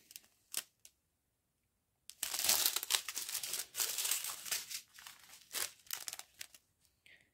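Strips of small zip-lock plastic bags of round diamond-painting drills crinkling as they are handled and set down. A couple of light clicks come first, then a longer bout of crinkling from about two seconds in, tailing off into a few scattered crackles.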